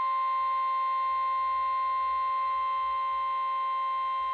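Emergency alert attention tone: a single steady, unbroken electronic tone held throughout, with fainter overtones. It is the alarm that signals an emergency warning, here a National Weather Service special marine warning, is about to be read.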